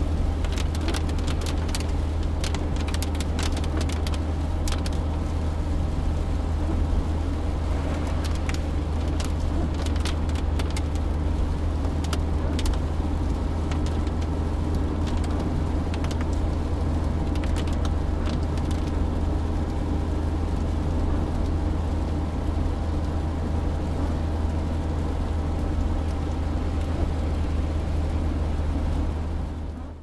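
A car driving at about 60 km/h in rain, heard from inside the cabin with the windows closed. A steady low drone of engine and road runs throughout, with scattered sharp ticks of rain on the car, most of them in the first half. It fades out at the very end.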